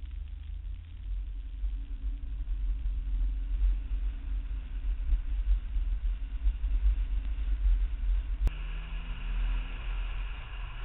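BMW E34 M5 on the move, heard from a camera mounted on the outside of the car: a heavy, steady low wind rumble over the faint note of its straight-six engine. About eight and a half seconds in, a sharp click, and the sound changes to more road and tyre hiss.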